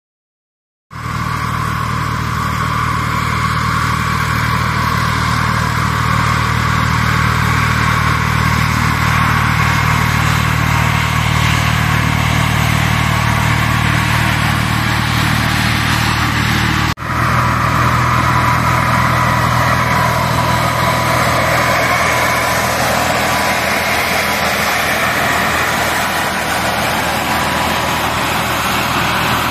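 Tractor-towed low-volume air-blast sprayer (CIMA atomizer) at work: the tractor engine and the sprayer's fan running as a loud, steady drone with a rushing hiss and a steady whine, starting about a second in. The sound drops out for a moment just past halfway.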